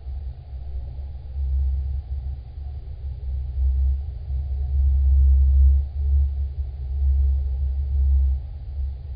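A deep, low rumble that swells and eases every second or two, with little above it.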